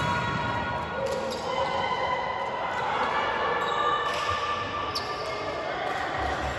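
A volleyball bouncing with a few sharp knocks on a wooden sports-hall floor. It rings in the large, echoing hall over a continuous murmur of players moving about.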